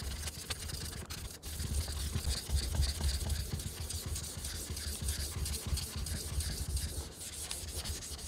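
Atoma 400 diamond plate and a wet Black Shadow whetstone rubbed back and forth against each other, a steady gritty scraping with a brief dip about a second in, as the stone is lapped flat.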